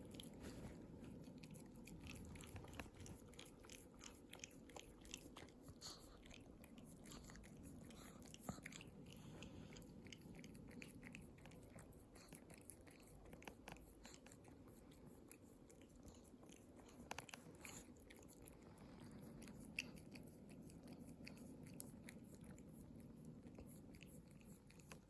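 Pomeranian licking a person's bare feet: a long irregular run of faint wet licks and mouth smacks, with a few sharper clicks.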